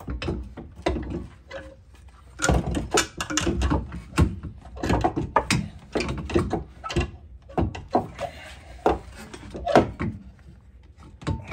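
Irregular metallic clanks, knocks and scrapes of a Honda CR-V's rear strut and coil spring assembly being handled and worked into position by hand.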